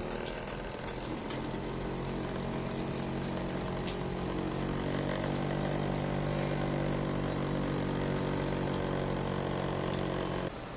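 Small DC motor driving a homemade model water pump, running with a steady hum; it stops abruptly near the end.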